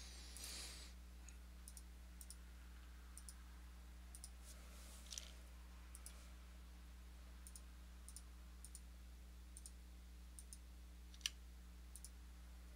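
Faint computer mouse clicks, scattered irregularly throughout, with one sharper click about eleven seconds in, over a steady low electrical hum.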